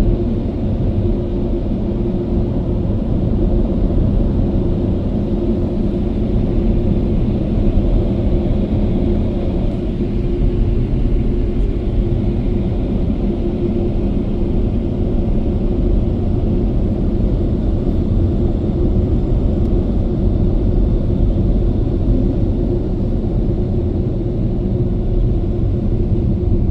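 Car wash Thrust Pro air dryers blowing close over the car, heard from inside the cabin: a steady, loud rush of air with a low hum running under it.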